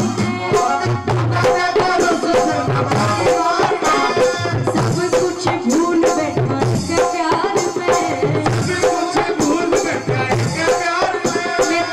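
Live Shyam bhajan music: a fast, steady hand-drum rhythm under a melody line, playing without a break.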